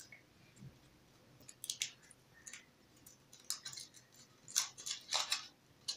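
Foil wrapper of a Kinder Surprise chocolate egg crinkling in short, scattered rustles as it is peeled off by hand.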